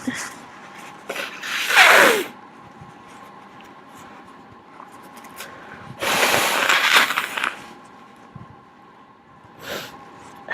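A person blowing their nose hard, one long noisy blow of about a second and a half midway. Before it, about two seconds in, a short loud burst of breath and voice with falling pitch.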